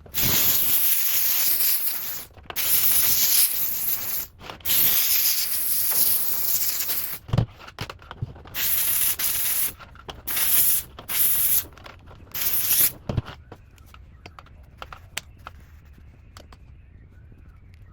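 Handheld steam cleaner spraying in a series of hissing bursts, the first ones a couple of seconds long and the later ones shorter, stopping about thirteen seconds in. A few faint clicks follow.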